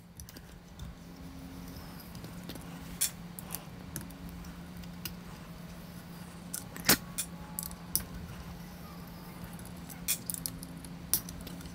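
Small metallic clicks and clinks of an Allen key working the 3 mm screws that hold a bookshelf speaker's bass driver, a few sharp ones in the middle and more near the end, over a steady low hum.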